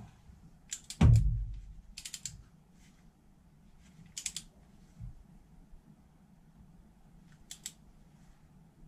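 Click-type torque wrench tightening cylinder head bolts: short bursts of ratchet clicks four times, with a loud low knock about a second in. The clicks come as the bolts are brought up to torque on the first pass of the tightening sequence.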